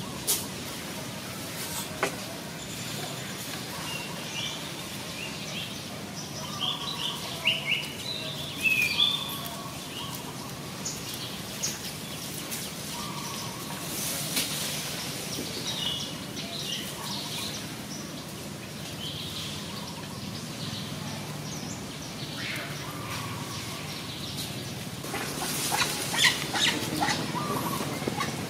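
Outdoor ambience with small birds chirping on and off in short calls, and a run of sharp clicks and rustles near the end.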